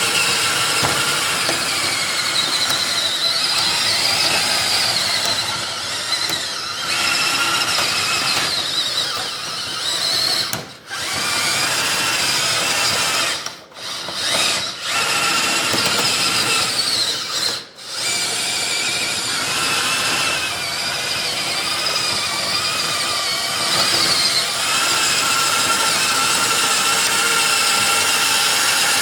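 Electric motors and gearing of a converted Bruder RC bulldozer running with a steady whine whose pitch wavers. It cuts out briefly four times.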